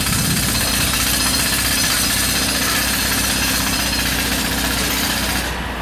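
Loud, steady mechanical noise of a motor running, with a low engine hum underneath, easing off near the end.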